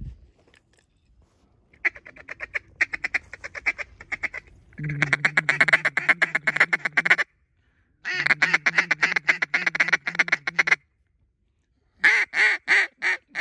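Duck call blown at a passing group of ducks: long, fast strings of quacks and chatter, then a short run of about five loud, spaced quacks near the end.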